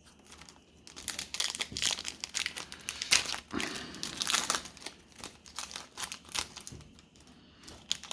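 Plastic wrapper of a Panini NBA Hoops trading-card pack being torn open and crinkled, a dense run of crackles starting about a second in.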